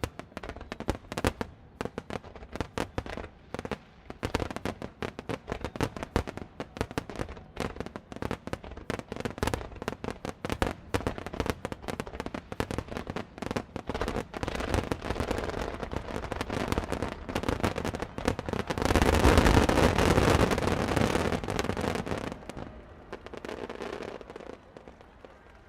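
Fireworks finale: a rapid barrage of shell bursts and crackling, building about three quarters of the way through to a dense, continuous peak of overlapping bangs, then dying away near the end.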